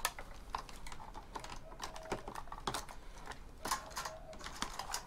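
Faint, irregular light clicks and taps of plastic parts and wires being handled and tugged inside an opened robotic vacuum cleaner's chassis.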